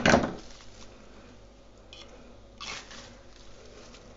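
Soft rustling of maple-leaf sprigs being handled and fitted into a small glass tube. A short brush opens, and a few faint rustles follow about two and three seconds in.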